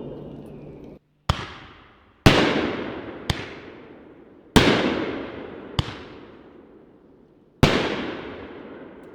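Elite Fireworks Renegade Cowboys 15-shot 500-gram cake firing its shots. There are six sharp bangs, three of them loud, each trailing off in a long fading tail. An earlier shot's tail cuts off abruptly about a second in.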